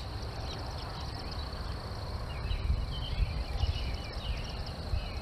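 Outdoor ambience: a steady high insect trill over a low rumble of wind or flowing water, with faint scattered chirps in the middle.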